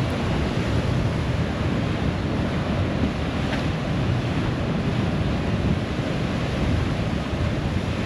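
Steady wind buffeting the microphone over surf washing around the pier pilings.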